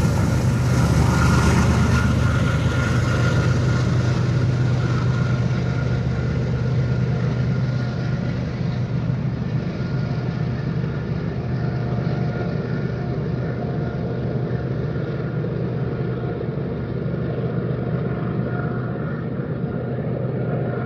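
Empty BNSF unit grain train moving away: a steady rumble with a low hum, slowly fading and growing duller as it recedes.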